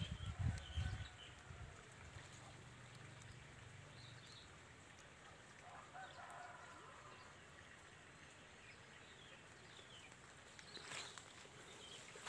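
Faint outdoor ambience with scattered faint bird chirps, a few low thumps in the first second and a brief rustle near the end.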